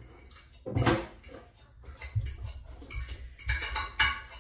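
Kitchen clatter of dishes and metal utensils: a knock about a second in, then a run of clinks and clanks near the end, the loudest just before it ends.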